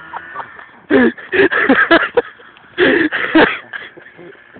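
A person's voice in two loud outbursts, about a second in and again about three seconds in, each a quick string of short wordless cries.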